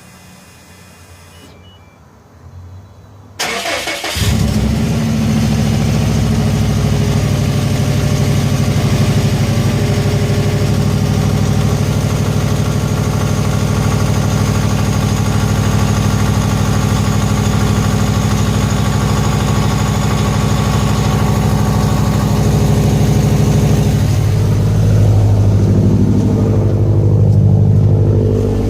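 A 2011 Subaru WRX STI's turbocharged flat-four, fitted with an Invidia Q300 catback exhaust, is cranked briefly on the starter and catches about four seconds in. It then idles loud and steady, and the idle note changes near the end.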